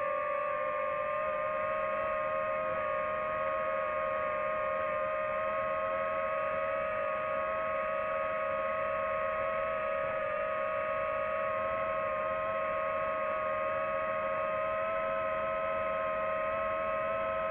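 DJI FPV drone's motors and propellers whining at a steady pitch while hovering.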